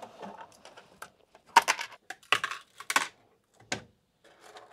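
Clicks and clacks of a flexible 3D-printer build plate being handled and freshly printed PETG test parts being taken off it. Four louder clacks come in the middle, among lighter ticks.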